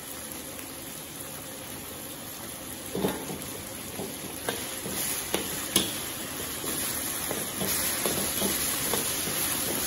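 Hot chilli oil sizzling steadily in a steel wok as hotpot base paste goes in and is stirred with a metal ladle. The sizzle grows louder after about three seconds, with a few sharp clicks of the ladle against the wok.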